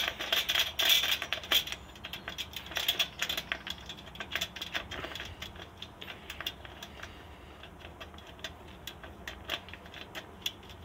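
A hand wrench tightening a nut and washer on a bolt in an aluminium sluice box: quick metallic clicks, dense for the first two seconds, then thinning to scattered ticks.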